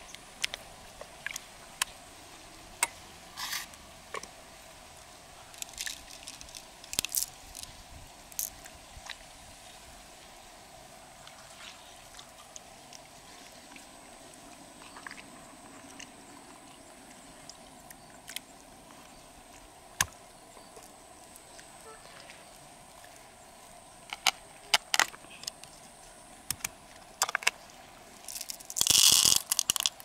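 Loose freshwater pearls clicking together in a hand and against an open freshwater mussel shell: scattered small clicks and taps, with a louder rattling burst near the end as the pearls are tipped into the shell.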